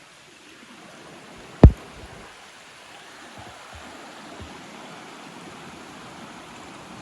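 A single sharp knock about one and a half seconds in, over a steady rushing hiss, with a few faint low taps a couple of seconds later.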